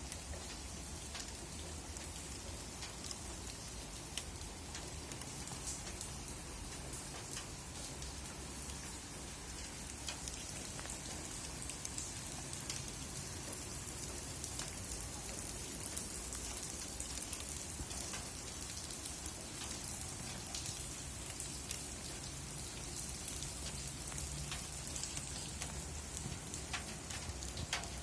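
Steady summer rain falling on a surface, a continuous hiss with many individual drops ticking.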